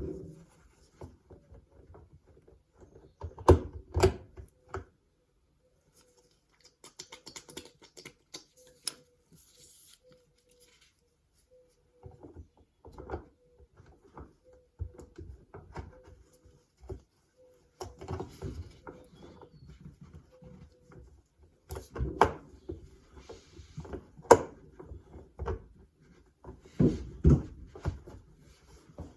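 Scattered knocks, clicks and clatters of hands and tools handling dishwasher parts, in short clusters with quiet gaps between, plus a faint steady hum through the middle stretch.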